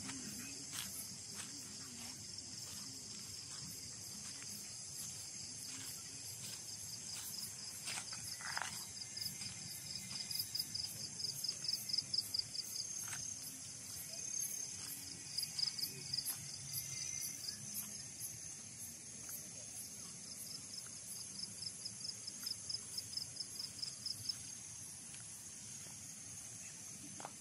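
Night insects calling in a steady high-pitched chorus. A pulsing trill rises in and out through the middle, strongest about a third of the way in.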